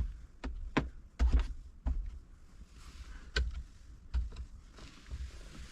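Scattered light clicks and knocks of plastic interior trim being handled in a car cabin, about seven sharp taps spread irregularly over a low rumble.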